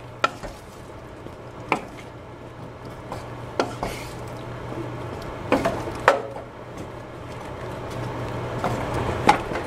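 Wooden spatula stirring beef and potato chunks in thick curry in a stainless steel saucepan, with a handful of short knocks against the pot, a second or two apart. A steady low hum runs underneath.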